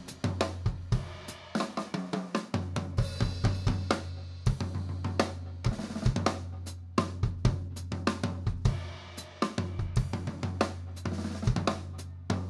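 Jazz ensemble playing live with the drum kit to the fore: busy snare, bass drum, hi-hat and cymbal hits over a steady low bass note. The bass note drops out for about a second near the start, then returns.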